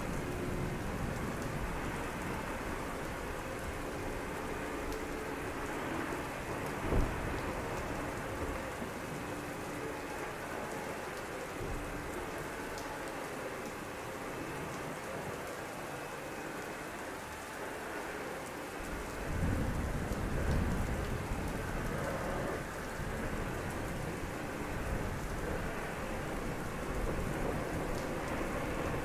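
Heavy rain falling steadily, with a low rumble of thunder about twenty seconds in. A single sharp thump sounds about seven seconds in.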